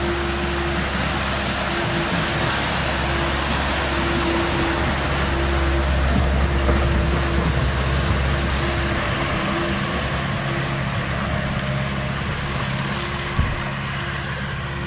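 Tractor engine running steadily under a constant rushing noise as it drives through deep water, with a single low knock near the end.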